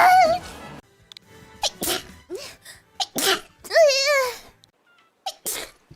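A young woman sneezing several times in quick succession: short sharp bursts, one of them ending in a high-pitched squeal.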